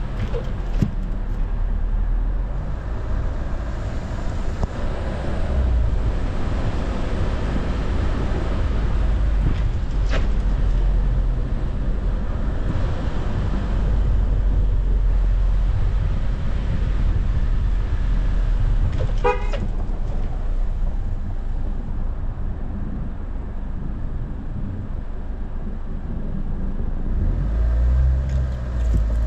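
Car driving on unplowed snow-covered streets: a steady low rumble of engine and tyres, with a brief car-horn toot about two-thirds of the way through.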